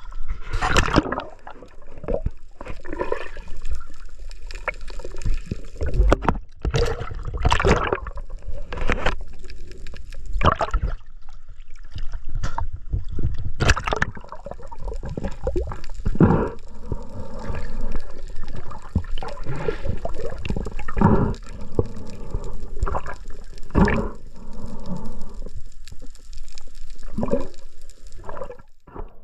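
Water sloshing and gurgling, with irregular splashes throughout.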